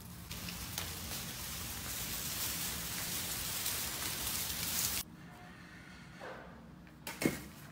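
Rustling and scraping of a bundle of pulled-up tomato vines being dragged along the ground, an even hiss for about five seconds that stops abruptly. A single sharp click comes near the end.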